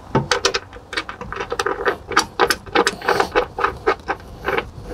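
Metal bolts clinking and scraping against the metal mounting box of a boat seat suspension as they are slid through its holes and lined up: a quick, irregular run of small metallic clicks and rattles.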